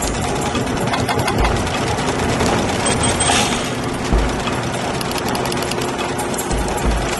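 Dense, continuous mechanical rattling made of rapid clicks, with a few deep thuds scattered through it.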